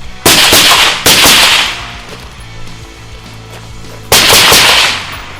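Three gunshots: two about a second apart, then a third about three seconds later. Each has a long echoing tail.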